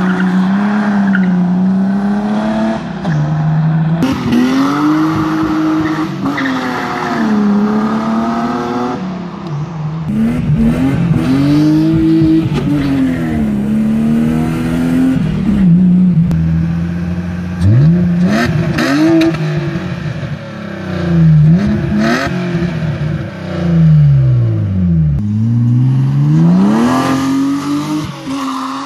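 BMW E36 325i's 2.5-litre straight-six, running through a stock exhaust with the rear muffler gutted, revving up and down over and over, with several sharp climbs in pitch and long falls. Part of it is heard from inside the cabin.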